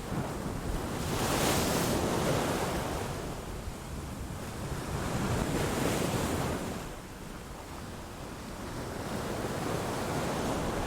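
Sea waves breaking and washing on a shore, the surf swelling twice, about a second in and again around five seconds in, then easing, with a low rumble of wind on the microphone underneath.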